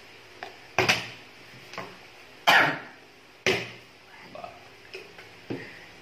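Plastic water bottle being flipped and landing on a table with sharp knocks, again and again, with three loud landings in the first few seconds and a lighter one near the end.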